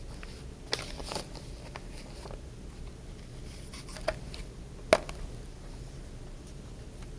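Quiet room tone with a low steady hum, broken by a few small clicks and taps, the sharpest about five seconds in.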